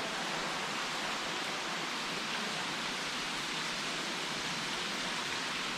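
Rushing water in a rocky canyon stream: a steady, even rush with no separate splashes or changes.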